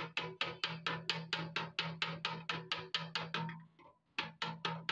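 A hammer tapping quickly on the sheet-steel fuel tank of a Honda CD 70 motorcycle, about five light taps a second, working out a dent. The tapping breaks off briefly about three and a half seconds in, then starts again.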